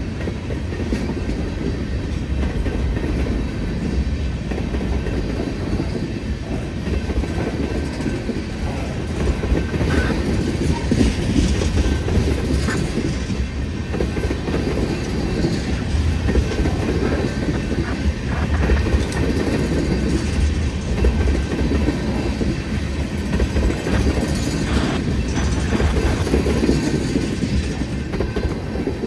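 Freight cars of a long CN train rolling slowly past: a steady rumble with the clickety-clack of wheels over the rail joints.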